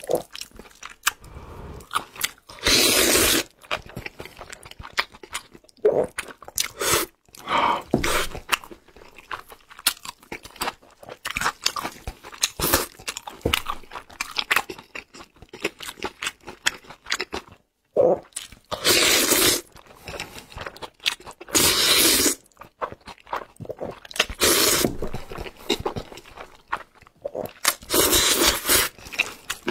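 Close-miked eating of noodles in black bean sauce: a loud slurp about every few seconds, with wet chewing and crunchy bites between.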